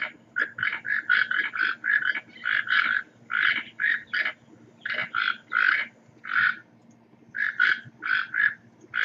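Toco toucan giving a long run of short, hoarse croaking calls, about three a second, with a break of under a second about two-thirds of the way through.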